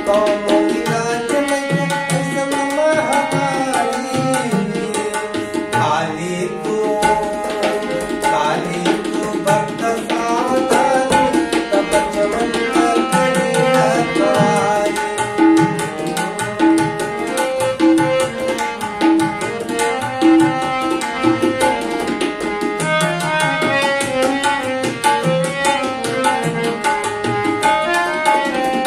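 Song accompaniment: a fast, steady tabla rhythm under a melodic instrument playing held notes and runs.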